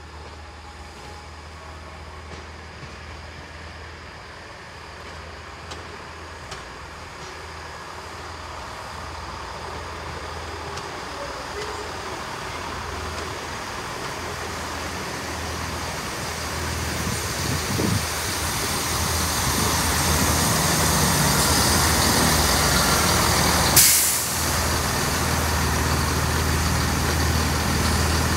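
First Great Western Networker Turbo diesel multiple unit pulling into the platform, its engine and wheels growing steadily louder as it comes in. As it stops, about three-quarters of the way through, there is a sudden sharp hiss of air from the brakes, then its diesel engine idles.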